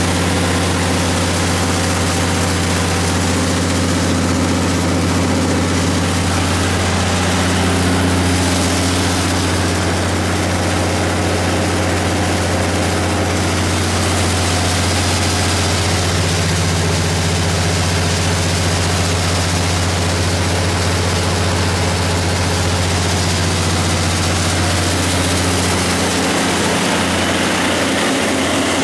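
Cummins NT855G inline-six turbocharged diesel engine of a 230 kW generator set running steadily at its governed speed: a constant, loud low drone.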